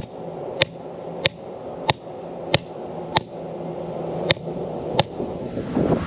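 Hammer striking the top of a galvanized pipe to drive a no-dig fence post spike into the ground: a steady run of sharp metal-on-metal blows, about one and a half a second, stopping about five seconds in.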